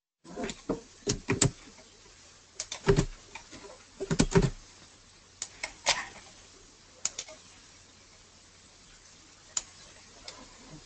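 Computer keyboard keys and mouse clicks in short irregular clusters of taps, over a faint low hum.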